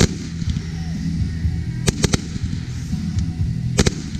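Aerial fireworks firing and bursting in sharp bangs: one at the start, a quick cluster of three about two seconds in, and a close pair near the end.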